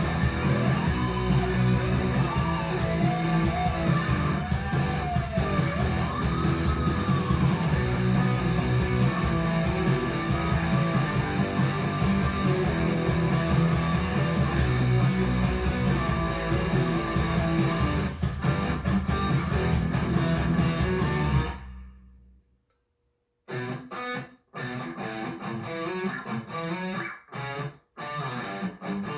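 Guitar-led music played through the Fosi Audio ZA3 amplifier and speakers. About 21 seconds in it fades out, there is a short gap of silence, then another guitar piece starts.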